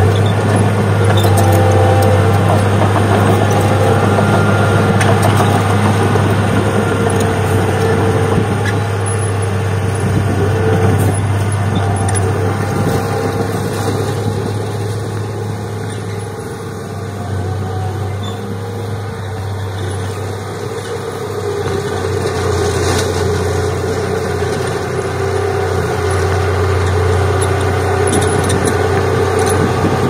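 Komatsu D31P crawler bulldozer's diesel engine running steadily under load while it pushes soil. The sound eases somewhat about halfway through as the machine works farther off, then grows louder again near the end as it comes close.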